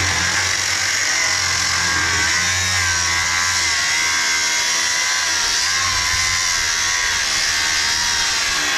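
Angle grinder with a cut-off disc cutting through steel rectangular tubing: a loud, steady high whine over the hiss of the disc biting the metal. The pitch wavers a little as the load on the disc changes.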